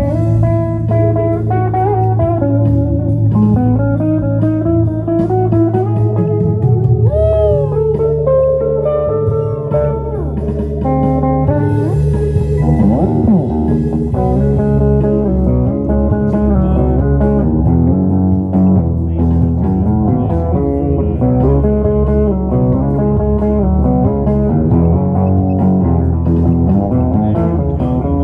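Guitar played live, a continuous run of single picked notes with a few bent and sliding notes, over steady low notes underneath.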